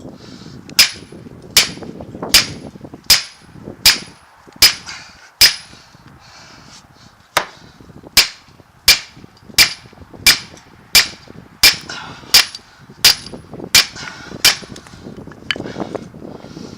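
Hammer blows on steel, a sharp ringing strike about every three-quarters of a second: seven blows, a pause of about two seconds, then about eleven more. It is a U-joint on a truck drive shaft being hammered to knock the bearing caps out of the yoke.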